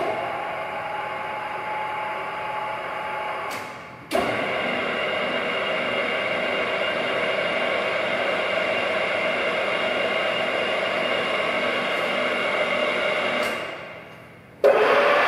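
Radial drilling machine's motor and gearbox running with a steady whine. It starts suddenly three times; the first run lasts about three seconds and the second about nine, and each run winds down when switched off.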